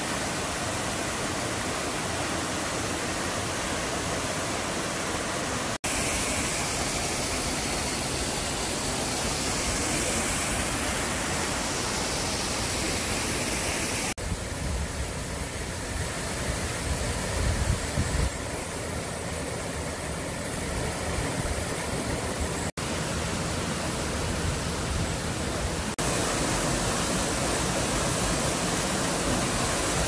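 Waterfalls pouring into rock pools: a steady rush of falling water that shifts in tone abruptly several times as it cuts from one fall to another, with a low rumble added for a few seconds about halfway through.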